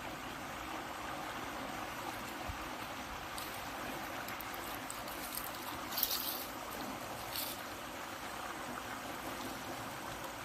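Steady rush of flowing canal water, with a couple of brief rustles about six and seven and a half seconds in.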